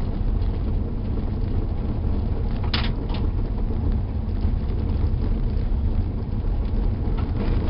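Car driving, heard from inside the cabin: a steady low rumble of engine and road noise, with two brief clicks about three seconds in.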